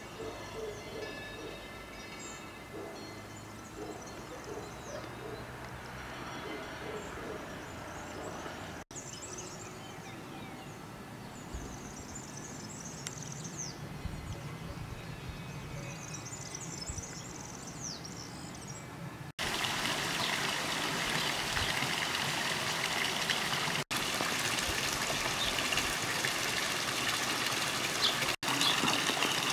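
Faint steady tones, then birds singing with quick high chirps and falling whistles, then, from about two-thirds of the way in, a louder steady rush of flowing water.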